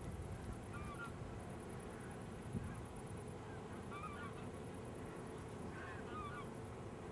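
Distant geese honking a few times over a low steady rumble.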